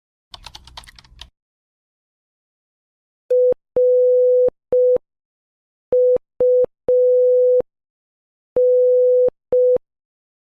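Morse code sent as a steady beeping tone, short and long beeps in three groups: dit-dah-dit, dit-dit-dah, dah-dit, spelling R-U-N. A brief faint rustle comes just before the beeps.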